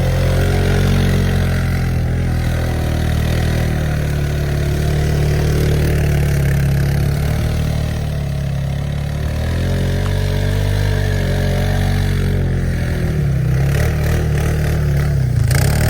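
A 6.7-litre diesel pickup truck engine running under varying throttle as the truck is driven and drifted in snow, its pitch rising and falling, with a dip and climb near the end.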